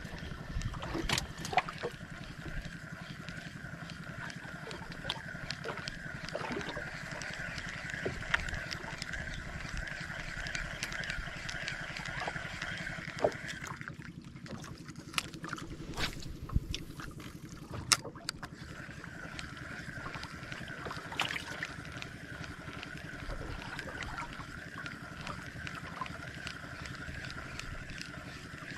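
Steady whirring of an ultralight spinning reel being cranked on a retrieve. It stops for several seconds around the middle, where a few sharp clicks are heard, then resumes, over a low rumble of water against the boat.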